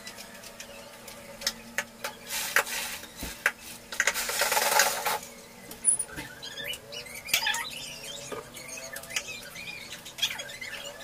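Spin mop being worked over a wet ceramic tile floor: swishing strokes, scattered knocks and clicks, and from about halfway through a string of short, wavering high squeaks.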